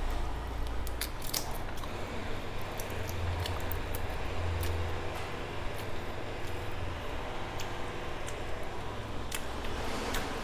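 Eating by hand from a steel plate: scattered sharp clicks and wet squishes of chewing and of fingers picking at food on the plate.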